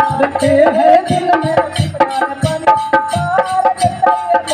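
Instrumental interlude of a live nirgun bhajan: a melody instrument holds and changes steady notes over a quick, even hand-drum beat of tabla type.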